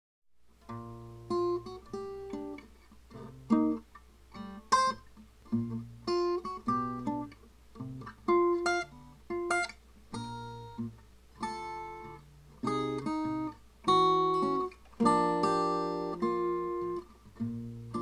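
Background music: an acoustic guitar playing a run of plucked notes and chords, each one fading after it is struck.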